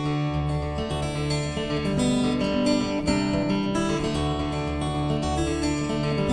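Background music played on acoustic guitar, with strummed chords.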